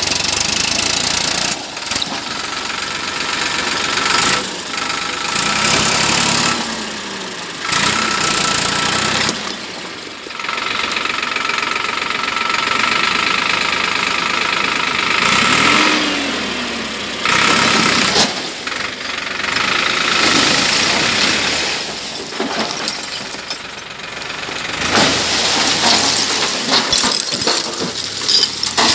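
Farmtrac 60 tractor's diesel engine running under heavy load with a loaded tipper trolley behind it, revving up and falling back in surges every few seconds.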